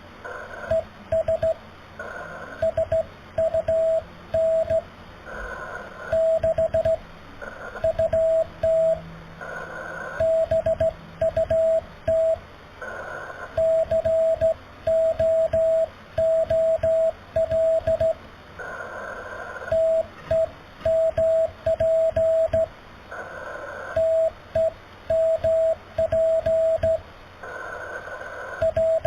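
Morse code (CW) on an amateur radio: a single steady tone keyed on and off in dots and dashes, sent at slow speed. A hiss of band noise comes up in the pauses between characters.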